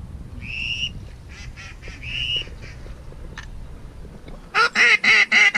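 Duck quacking: a run of four loud, rapid quacks near the end, after two shorter high-pitched calls about half a second and two seconds in.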